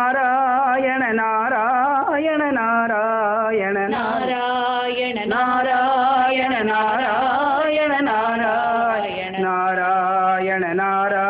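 Devotional namavali singing: voices chanting the names of Krishna in a wavering melody, over a steady drone note.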